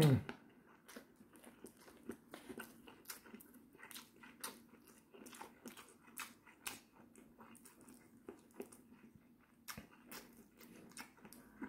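A man chewing sausage close to the microphone, mouth closed: soft, irregular mouth clicks and small wet sounds, quiet throughout.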